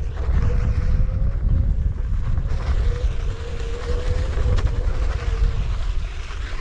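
Riding a DIY VESC Onewheel on a dirt trail: heavy wind buffeting on the microphone and tyre rumble, with a faint steady whine from the board's hub motor that drifts slightly up in pitch and fades in and out.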